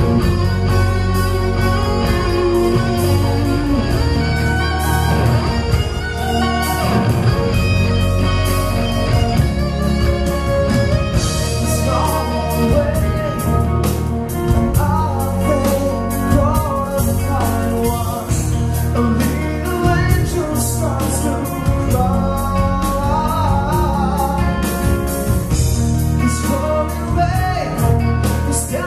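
Live rock band playing: a male voice singing over electric guitars, bass guitar, keyboards and drums. The vocal line comes in several seconds in.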